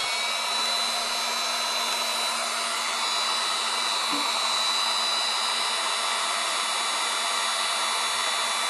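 Electric heat gun running steadily, a constant fan noise with a thin high whine, heating a dent in an aluminum panel to relax the metal for pulling.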